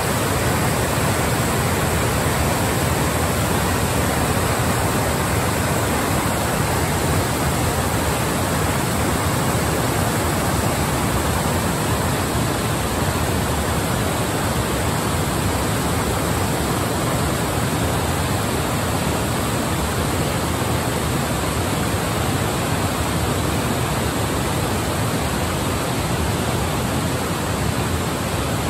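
Water pouring over a river weir and churning below it in a loud, steady roar, easing slightly near the end.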